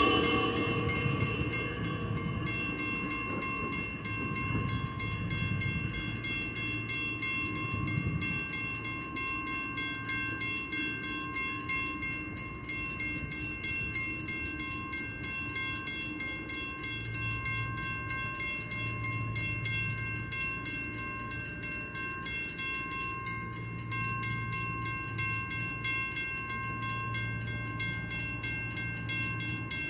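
A Metra Electric train pulling away, fading out over the first couple of seconds as its last car clears the crossing. After that, a grade-crossing warning bell rings steadily, a fast even ringing that carries on while the crossing signals stay active.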